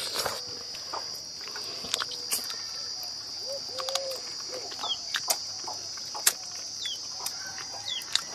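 Steady high-pitched insect drone, with a few short bird chirps and scattered clicks of lip-smacking and chewing from someone eating by hand. A brief low hum comes about four seconds in.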